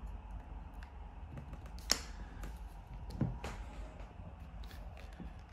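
Handling noise as a Canon T90 film SLR camera is picked up: a few light clicks and knocks, the sharpest about two seconds in.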